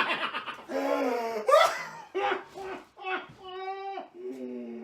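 A man laughing in high-pitched, drawn-out squeals, several long held notes with short breaks between, as he fights back the giggles.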